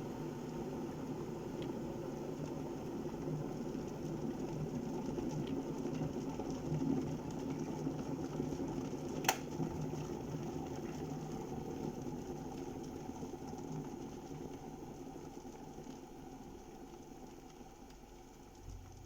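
Kettle heating water with a steady rumbling boil. A single sharp click comes about nine seconds in, and the rumble then slowly dies away.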